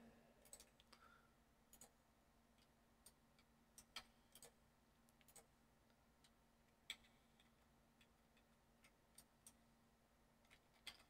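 Faint, scattered clicks of computer keys being pressed, irregular and a second or so apart, over near silence.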